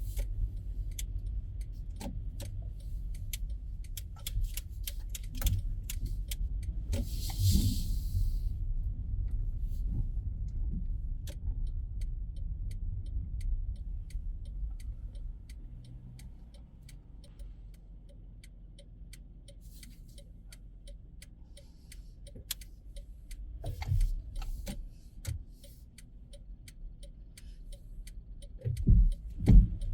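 Car cabin during a slow drive in city traffic: a steady low engine and road rumble, with a turn signal clicking through much of it. There is a short hiss about seven seconds in and a few thumps near the end.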